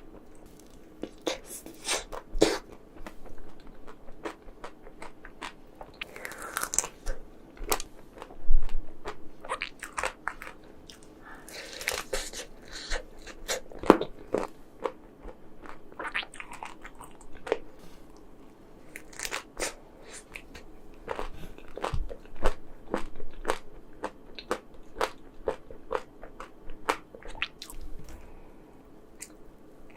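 Close-miked eating of chocolate ice cream: irregular crunching bites and chewing, with many sharp clicks scattered throughout and a few louder, longer crunches.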